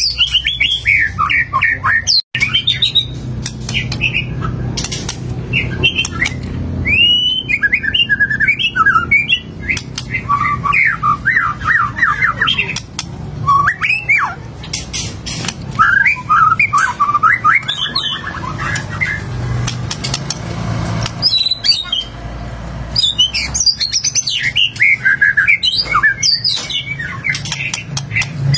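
White-rumped shama (murai batu) singing a long run of rapid, varied phrases, with a short pause about two-thirds of the way through.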